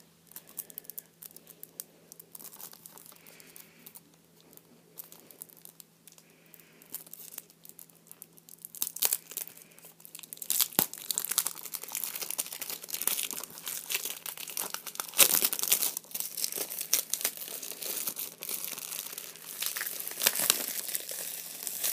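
Plastic wrapping crinkling and tearing as a Blu-ray case is worked open, hard to open. It starts with faint handling, then becomes dense and crackly from about ten seconds in.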